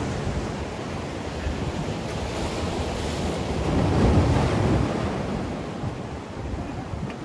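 Sea waves surging and breaking against the concrete blocks of a breakwater, with wind buffeting the microphone; the surge swells to its loudest about four seconds in.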